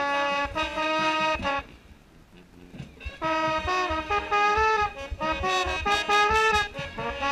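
Mellophone played right at the microphone, with marching band brass around it, in a run of held notes that change pitch in steps. The playing breaks off at about one and a half seconds and starts again about three seconds in.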